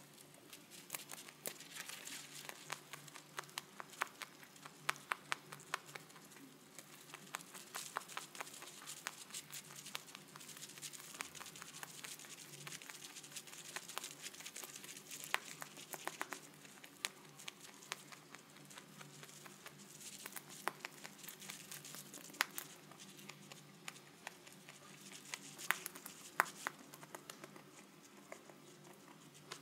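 Holland lop rabbit chewing a mouthful of dry alfalfa hay: a dense, irregular run of crisp crunches and crackles of the stalks.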